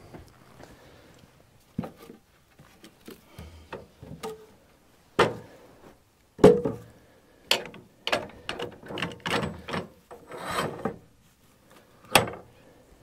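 A large Douglas fir log being worked with a cant hook on a sawmill bed: irregular hard knocks of wood and metal, the loudest about six and a half seconds in, and a stretch of scraping and rubbing of wood on wood from about eight to eleven seconds.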